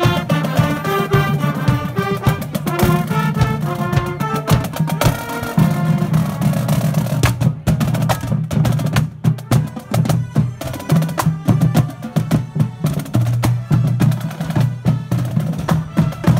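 Marching band playing as it parades: saxophones and brass carry a melody over drums at first, then about six seconds in the horns drop out and the drumline carries on alone with a rapid cadence on snare and marching bass drums.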